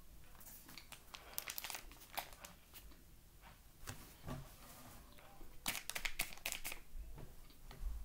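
A bag of cornstarch crinkling as it is handled, in two bouts of crackling: one from about half a second to two seconds in, and one from about five and a half to seven seconds in.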